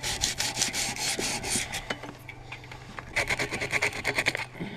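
Hand sanding of a motorcycle swingarm: rapid back-and-forth rubbing strokes. The strokes ease off about two seconds in and pick up strongly again about a second later.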